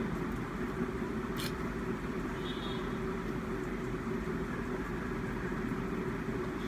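Steady low mechanical hum of room background noise, with one faint click about one and a half seconds in.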